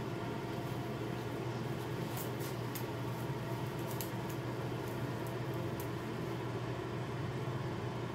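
Steady low room hum, with a few faint light clicks and rustles as a lace wig's cap is handled and stretched open.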